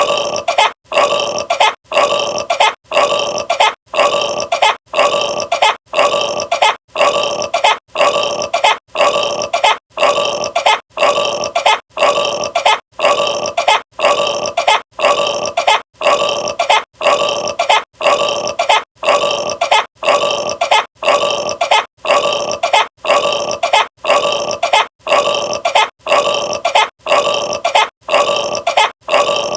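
A burp, repeated over and over at an even pace of about one a second, each one alike in length and pitch.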